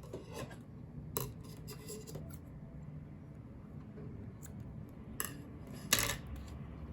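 Scissors cutting crochet thread, then a few light clicks and knocks from handling, the sharpest near the end.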